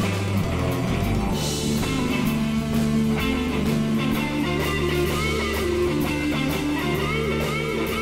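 Live rock band playing: electric guitar over bass notes, with a drum kit's cymbals keeping time.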